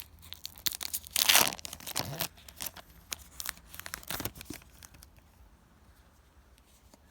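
Foil booster pack wrapper being crinkled and torn open, with one long loud tear about a second in and crackling handling around it.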